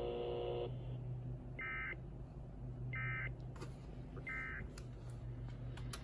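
Emergency Alert System end-of-message (EOM) code played over a radio speaker: three short data-tone bursts about 1.4 seconds apart, marking the end of the alert message. Before them, a steady tone cuts off less than a second in.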